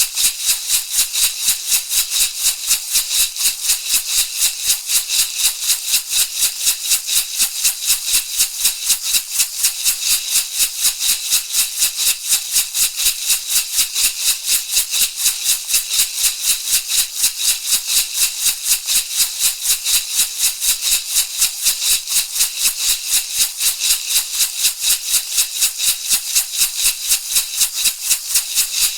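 Shamanic rattle shaken in a steady, unbroken rhythm of about four strokes a second, a dry, bright hissing rattle.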